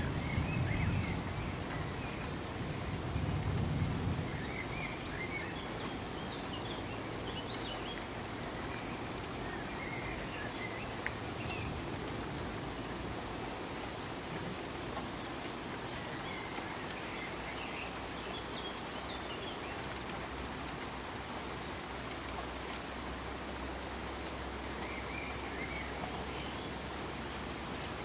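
Ambient rain sound effect: a steady hiss of rain with faint bird chirps scattered through it, and a low rumble in the first few seconds.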